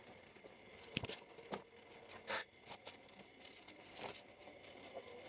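Quiet, with a few faint scattered clicks and soft rustles, about one every second or so.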